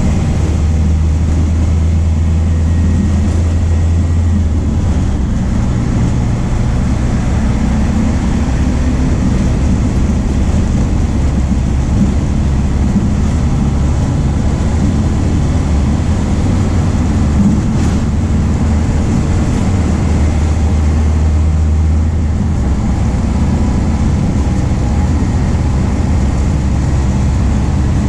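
MAN D0834 four-cylinder turbo-diesel of a VW 17.230 OD bus running under way. Its low engine note shifts in pitch and load several times.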